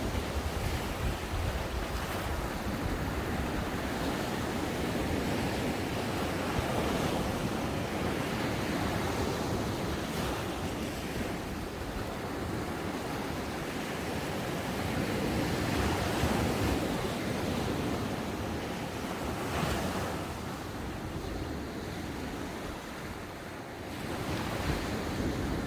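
Ocean waves breaking on a beach and washing up the sand, the surf swelling and easing every few seconds, with some wind on the microphone.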